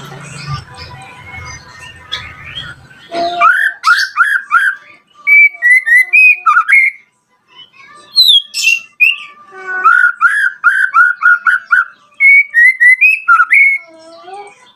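White-rumped shama (murai batu) singing: loud, rapid runs of clear whistled notes in separate phrases, starting about three seconds in after a low rumbling noise.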